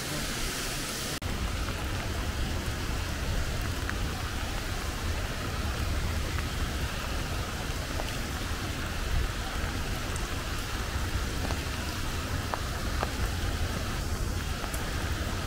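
Steady rain falling on trees and ground, an even hiss with a low rumble underneath. Just over a second in the sound shifts, losing some hiss and gaining more low rumble, with a few faint ticks scattered through.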